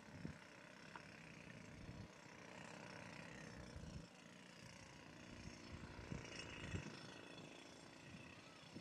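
Faint outdoor ambience: a distant vehicle rumble, with low gusts of wind buffeting the microphone now and then.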